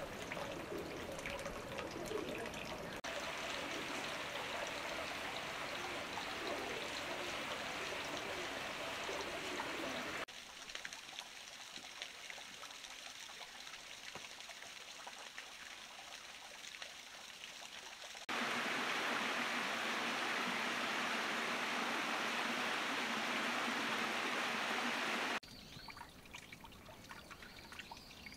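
Running water, trickling and flowing, in a series of separate takes that change suddenly about 3, 10, 18 and 25 seconds in. The take from about 18 to 25 seconds is the loudest and most rushing.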